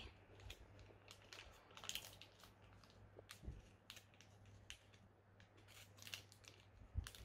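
Faint, scattered crinkles and sticky clicks as a small plastic baggie and sticky, under-activated slime are handled and pulled apart by hand.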